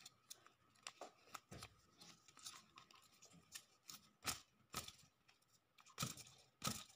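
Faint paper rustling and light clicks from fingers handling and flicking a folded-paper fidget spinner with a cardboard centre, with sharper taps about four seconds and six seconds in.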